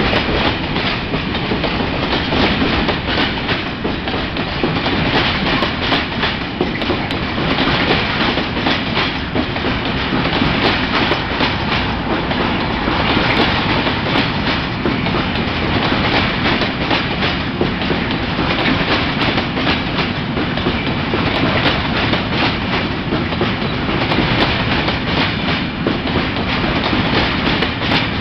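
Heavily loaded freight wagons, bogie tank wagons and flat wagons stacked with pipes, rolling steadily past. Continuous wheel-on-rail rumble with a rapid run of clicks as the wheels cross rail joints.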